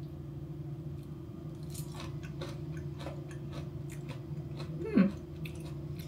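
A person chewing a bite of green onion kimchi (pa kimchi), with irregular soft crunching that starts about two seconds in. There is a brief hum from the voice about five seconds in.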